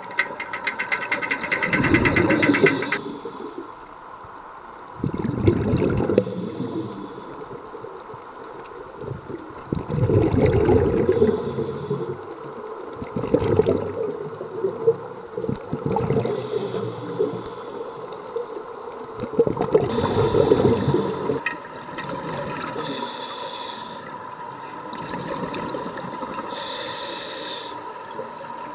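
Scuba regulator breathing underwater: short hissing inhalations alternating with rumbling bubble bursts from exhalations, about one breath every four seconds.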